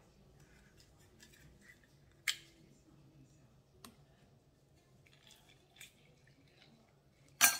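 Kitchen tools being handled at the counter: a few sharp clicks and knocks over quiet room tone, one about two seconds in, a smaller one near four seconds, and the loudest near the end.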